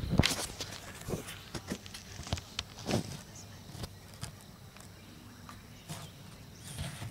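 Irregular short knocks and clicks, loudest just after the start and about three seconds in, thinning out in the second half.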